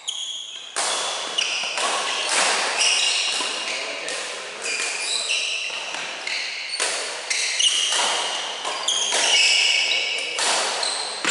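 Badminton doubles rally: rackets hitting the shuttlecock with sharp smacks, roughly every half second to a second, echoing in a large hall. Court shoes squeak in short high chirps on the wooden floor as the players move.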